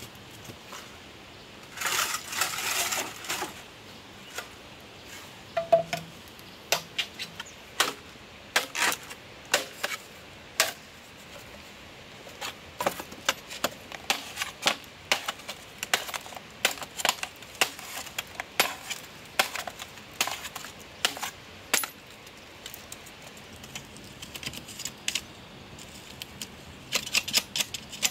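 A knife chopping, cutting and splitting green bamboo on a wooden chopping block: irregular sharp knocks, with a scraping stretch about two seconds in and a quick run of taps near the end.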